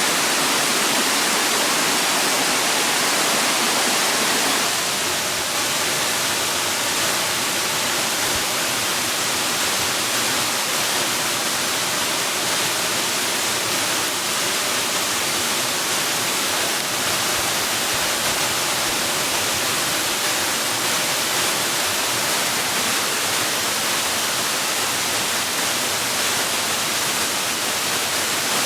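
Steady rushing water, an even hiss with no breaks, its texture shifting slightly about five seconds in.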